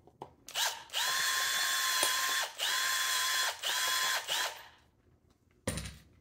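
Cordless drill with a step bit boring out the hole in a PVC end cap: the motor whines up to speed and runs in about four bursts as the hole is enlarged to fit a cable gland. A short knock near the end.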